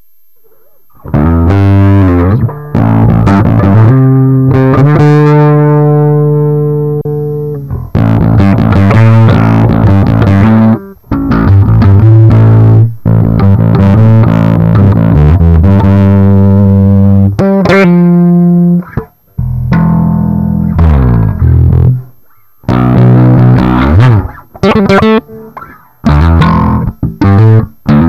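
Warwick RockBass Streamer electric bass played through a Korg Pandora PX5D multi-effects unit, its boiled strings sounding like new. A riff of loud, sustained notes starts about a second in, with one long note left ringing and fading, and short breaks between phrases.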